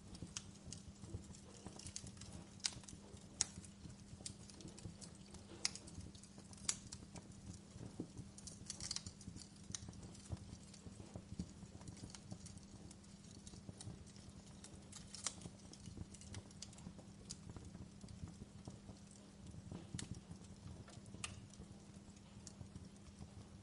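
Wood fire crackling: irregular sharp pops and snaps over a low rumble of burning, with a faint steady low hum underneath.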